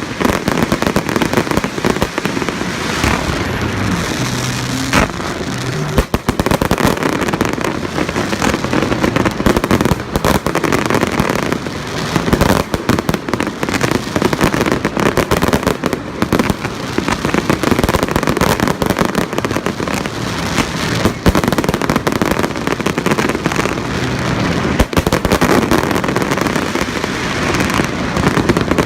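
Fireworks display: a dense, continuous barrage of bangs and crackling bursts.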